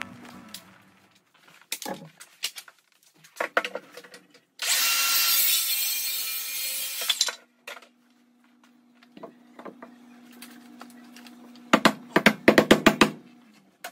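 Carpentry work on wood framing: scattered clicks, then a loud hiss lasting about two and a half seconds, then a faint steady hum. Near the end comes a quick run of sharp knocks as work is done overhead on the studs.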